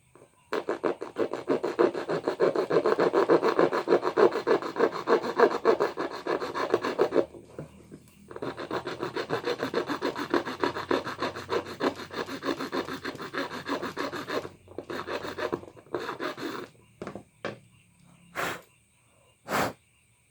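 A hand tool scraping a small hole into an airsoft inner barrel's chamber joint, rasping in fast back-and-forth strokes. Two long spells of scraping are split by a short pause, then come a few scattered short strokes.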